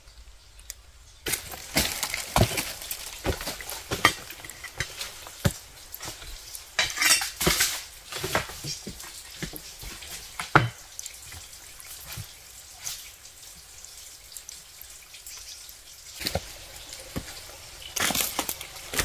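Irregular water drips and splashes with scattered sharp taps, starting about a second in.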